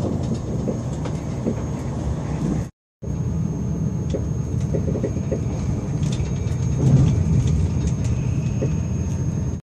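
Passenger train running, heard from inside the carriage: a steady low noise with a faint high whine on top, dropping out briefly about three seconds in.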